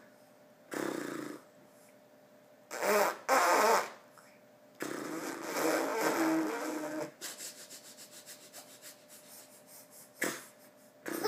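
A baby blowing raspberries, his lips sputtering in several separate bursts. The longest lasts about two seconds and has his voice in it, and it trails off into a run of quick lip flutters.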